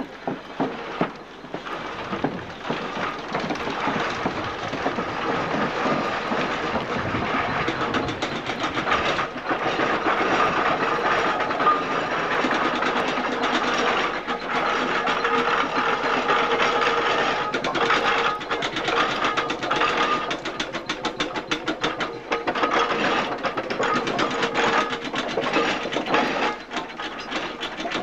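Steam road engines running close by: fast, even mechanical clatter and exhaust beats, getting busier about ten seconds in, with a steady tone underneath.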